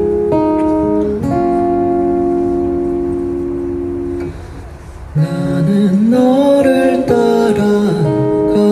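Live band music: sustained guitar chords ring and fade out about four seconds in. A moment later a male voice begins singing over the band, with the music coming back louder.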